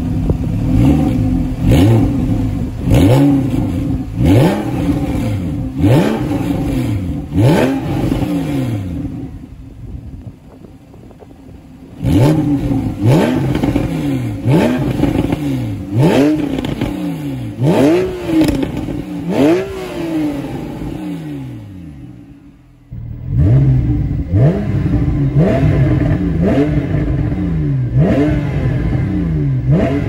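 Porsche 911 Carrera 4S (991) 3.8-litre flat-six being revved while parked, heard from behind the exhaust tips. It gives a run of quick throttle blips about once a second, each a sharp rise and fall in pitch, and settles back toward idle around ten seconds in and again a little past twenty seconds before the blips resume.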